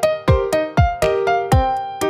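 Background electronic music with a steady beat: a deep kick drum about twice a second under keyboard chords.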